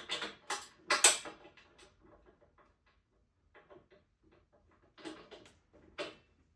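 Metal clinks and knocks of a 17 mm wrench and bolt hardware being handled while a compressor wheel is bolted on. There is a cluster of sharp knocks in the first second or so, the loudest about a second in, then a few fainter clicks later.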